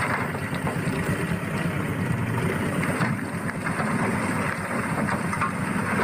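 Isuzu Elf light dump truck's engine running steadily with its tipper bed raised, dumping a load of earth.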